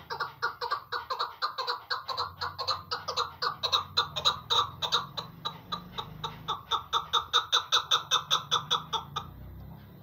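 Chukar partridge (chakor) calling: a long, fast series of sharp clucking notes at about five a second, which stops shortly before the end.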